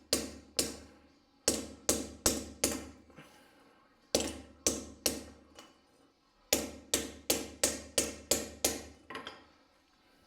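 Hammer striking a scooter's metal kickstarter lever to straighten it where it is bent and rubs on the variator cover. Sharp metallic blows come in four runs of two to eight strikes with short pauses between, each blow ringing briefly.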